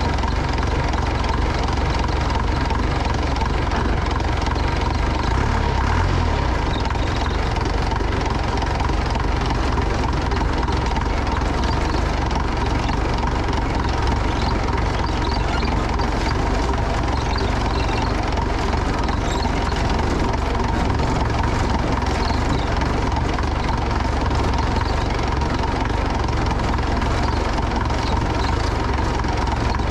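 Motor vehicle engine running steadily, with a deep rumble and a constant rushing noise over it.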